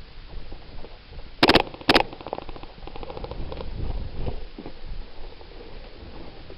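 Airsoft gun firing two short rapid bursts about half a second apart, each a fast run of sharp clicks, then rustling and knocking of movement.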